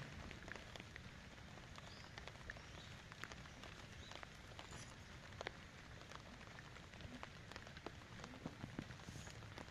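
Light rain falling on wet leaves and water-filled plant pots: faint, irregular drop taps over a steady hiss.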